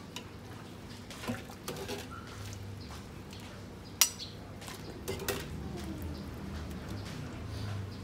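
A metal ladle and spoons clinking against a ceramic bowl and a steel soup pot as beef tripe is scooped out and served. There are scattered light clinks, with one sharp ringing clink about four seconds in.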